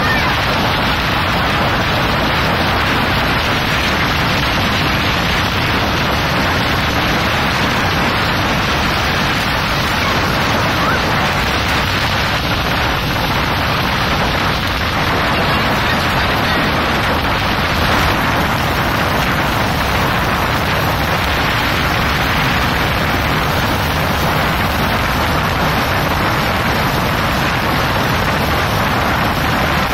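Steady noise of a Thames Clipper river boat under way: engine drone mixed with rushing water and wind buffeting the microphone.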